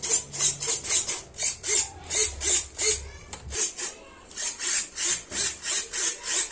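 Rhythmic scraping or rasping strokes, about four a second, pausing briefly about three and a half seconds in and then going on.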